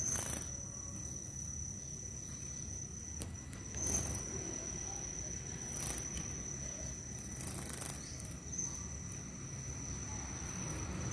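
A cricket or similar insect chirring in one steady high tone. Four brief noisy bursts come at about the start, 4 s, 6 s and 7.5 s, over a low background rumble.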